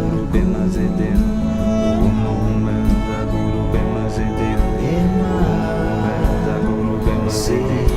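Background music with singing over strings and guitar, with a steady beat.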